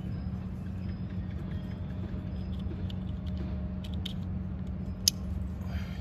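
A steady low hum with a few light plastic clicks, and one sharper click about five seconds in, as a car's dashboard headlight range controller switch and its wiring connector are handled.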